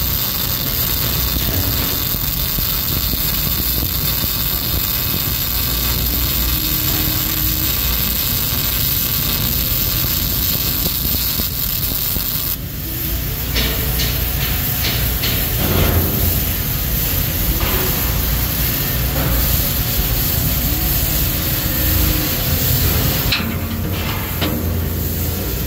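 MIG welding arc burning on steel plate: a steady hiss, which about halfway through turns rougher, with sharp crackles and pops.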